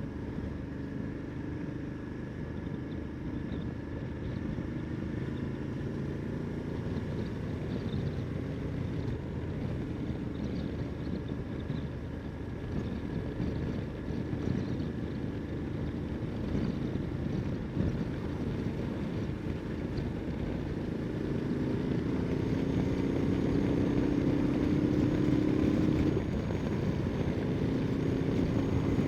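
Ducati Multistrada 1260 S's V-twin engine running while riding. Its pitch and loudness climb steadily for about five seconds toward the end, then drop suddenly.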